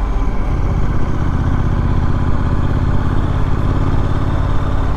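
Triumph Street Scrambler's parallel-twin motorcycle engine running steadily as the bike rides off.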